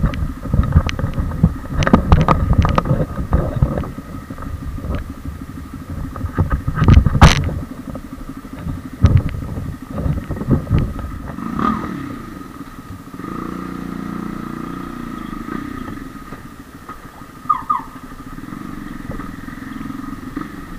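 Honda motorcycle engine running at idle. Over the first half there are sharp knocks and clatter from the bike and camera being handled. The engine note comes up clearer and steadier from about two-thirds of the way in.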